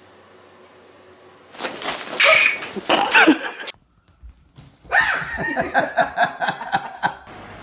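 A dog barking and yipping in two separate bursts with a short break between them.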